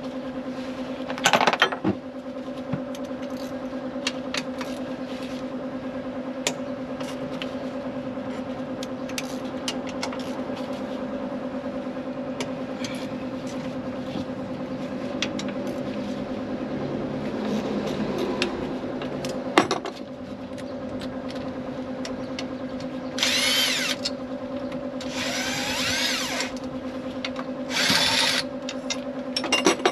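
A handheld power tool run in three short bursts near the end, each spinning up, over a steady hum, with scattered clicks and knocks of tools against engine parts.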